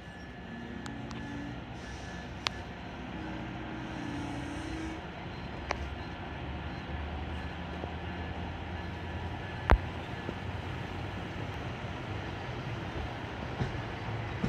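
GO Transit bilevel passenger coaches rolling past as the train pulls out of the station: a steady low rumble with a few sharp metallic clanks, the loudest about ten seconds in.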